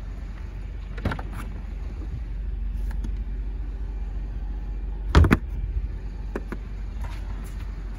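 Mercedes-Benz E250's boot being opened and handled: a latch click about a second in, a loud thump about five seconds in, then a few lighter clicks, over a steady low rumble.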